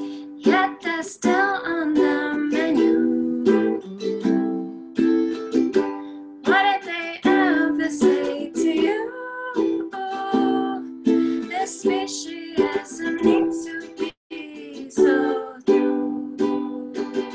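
Ukulele strummed with a woman singing along.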